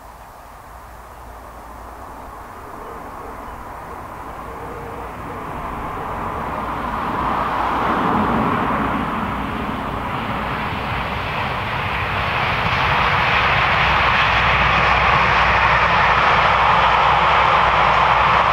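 A passenger multiple-unit train running past at a distance. Its noise swells up to about halfway, eases off a little, then rises again and holds loud near the end.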